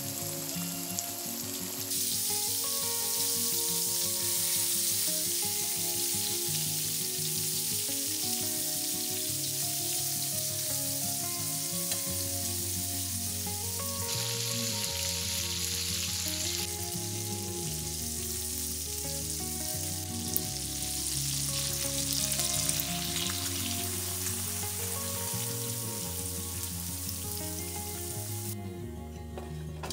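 Flour-coated chicken breasts sizzling in hot oil in a frying pan, with soft background music underneath. The sizzle falls away near the end.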